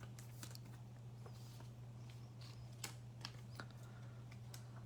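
Faint, irregular light clicks and taps of trading cards being handled, over a steady low electrical hum.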